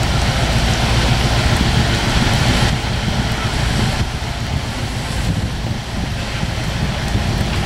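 Wind buffeting the microphone in a steady low rumble over a hiss of rain, with a distant passing passenger train faint beneath it. The noise eases slightly about three seconds in and again a second later.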